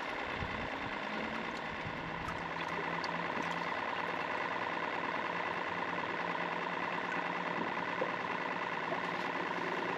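Boat motor running steadily with a constant hum and whine.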